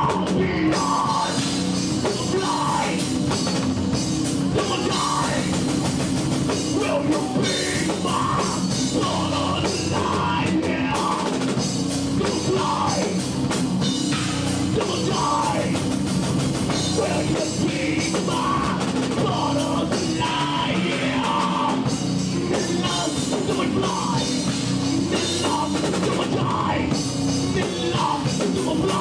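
Live heavy metal band playing: a seven-string guitar, a five-string bass and a drum kit. The music is loud and continuous, with a repeating riff.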